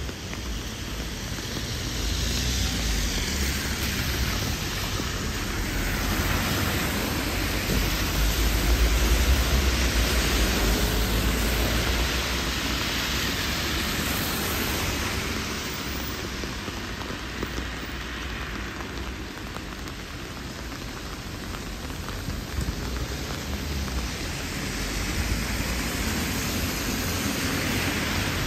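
Steady rain falling, with a low rumble underneath that swells up about two seconds in and eases off again after about twelve seconds.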